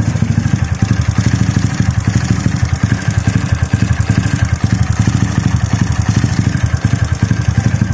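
Honda XRM 125 Fi's single-cylinder four-stroke engine idling steadily, with a rhythmic mechanical ticking from the top end. The owner puts the tick down to hard riding and names the cam chain tensioner, its rollers and the chain guide as the first things that could be causing it.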